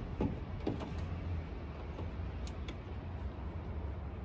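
Scattered light clicks and taps of hands working a car's factory front-door speaker loose from its mounting in the door panel, over a steady low background rumble.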